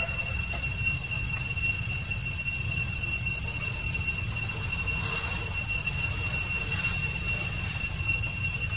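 A steady high-pitched whine, one unchanging tone with overtones, over a low rumble.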